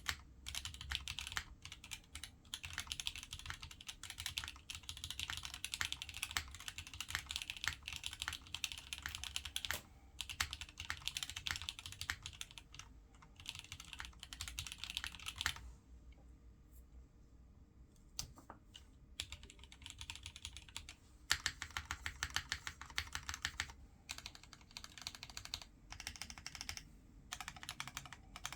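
Custom Satisfaction75 mechanical keyboard being typed on fast, its lubed Momoka Frog linear switches with heavier springs on a POM plate under GMK keycaps giving rapid, dense keystroke clacks. Typing breaks off a little past the middle, a few single keystrokes follow, then fast typing resumes.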